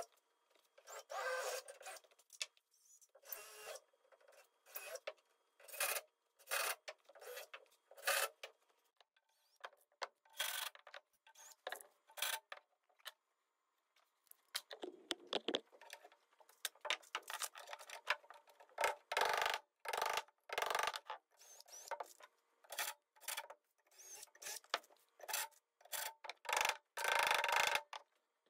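Cordless drill boring and driving screws into wood, in many short bursts with silent gaps between them.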